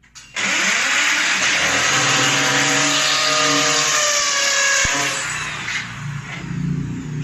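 A power tool switches on abruptly and runs at full speed with a loud, harsh whine for about five seconds, then winds down to a lower hum.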